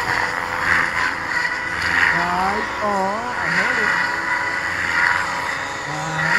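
RC helicopter flying low aerobatics: a steady high motor and rotor whine with whooshing swells about once a second as the blades load and unload. A person's voice is heard briefly around the middle.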